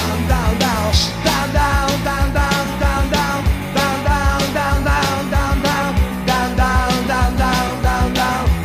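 Rock and roll band recording with a fast, steady drum beat under electric guitar.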